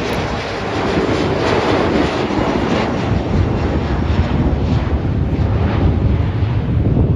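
Airplane engines roaring steadily as an aircraft passes, with wind rumbling on the microphone.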